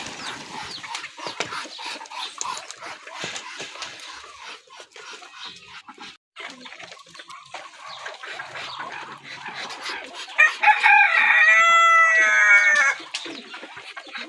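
Desi chickens clucking and calling, with a rooster crowing once loudly about ten seconds in, a single crow of roughly two and a half seconds that falls in pitch at the end.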